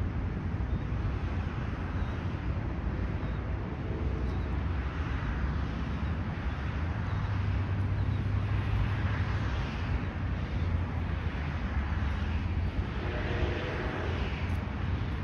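A steady low rumble of jet aircraft engines running at the airport, swelling and easing a little.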